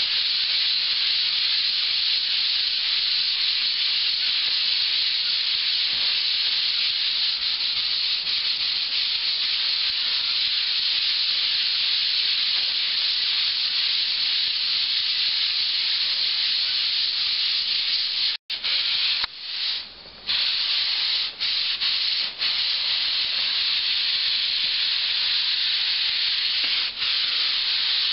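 Hand sanding pad on a sanding glove rubbing over dried joint compound on a drywall seam: a steady scratchy hiss that breaks off briefly a few times about two-thirds of the way through.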